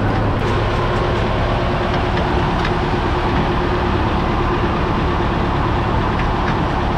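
A vehicle engine running steadily, heard from on board: a continuous drone with a steady low hum, joined about half a second in by a steady higher tone.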